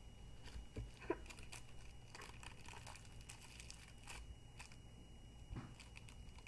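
Faint rustling and scattered light clicks, like handling noise on a microphone, over a faint steady high-pitched whine and low hum.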